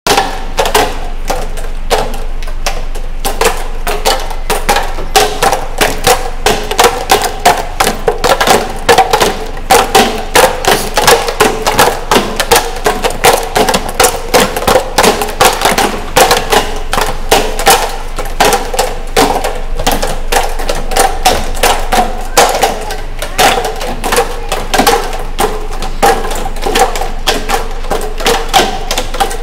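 Rapid, irregular knocking and thudding of boxing-gloved punches striking plastic drink bottles hung in wooden frames, several children hitting at once, several blows a second.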